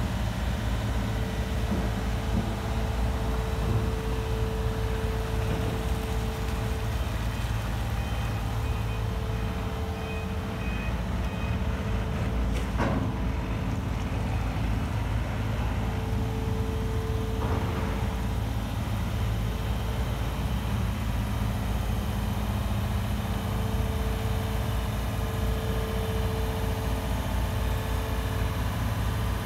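Komatsu PC490HRD-10 high reach demolition excavator's diesel engine and hydraulics running as the upper structure slews round. A steady tone comes and goes over the engine, with a brief run of faint beeps about a third of the way through.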